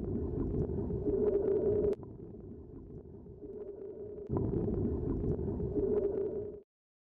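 Muffled rushing water noise from a camera held underwater, a steady low wash. It is loud at first, drops lower about two seconds in, swells again a couple of seconds later, and cuts off abruptly near the end.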